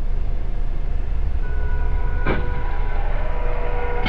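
Low rumble of a car and its surroundings heard through a dashcam. A steady high tone comes in about a second and a half in, and there is one sharp click about two seconds in.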